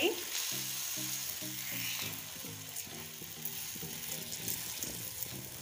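Rice-and-egg batter sizzling steadily in hot oil on an iron tawa while a metal spatula spreads it thin across the pan.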